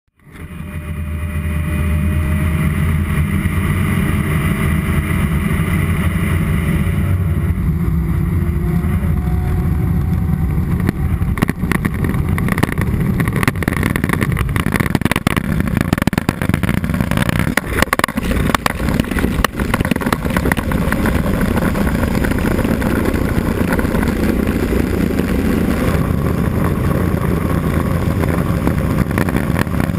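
Cessna 206 Soloy turbine conversion's turboprop engine and propeller running, a loud steady drone that fades in at the very start. A faint tone sits over it for the first several seconds, and the noise grows rougher with crackles after about ten seconds.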